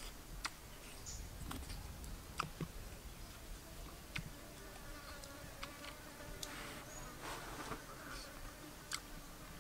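Insects buzzing steadily, with scattered small clicks and crackles from hands picking at food on leaves.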